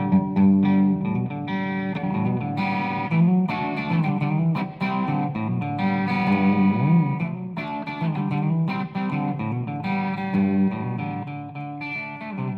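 Electric guitar played through a Marshall CODE 100 modelling amp head and 4x12 cabinet: a riff of picked single notes and chords, with string bends around the middle.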